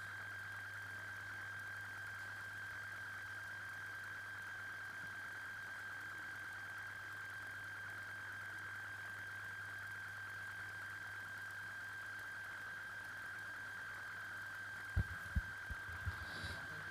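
A steady electrical hum with a constant high whine on top, unchanging throughout, and a few dull thumps near the end.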